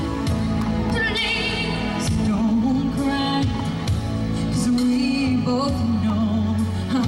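A woman singing into a microphone over an instrumental accompaniment with steady bass notes; her voice wavers with vibrato on held notes.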